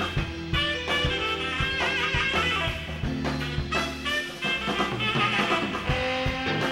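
Blues band playing live: saxophone over electric bass, guitar and drums.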